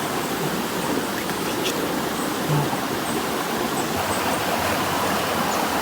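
Steady rush of flowing river water.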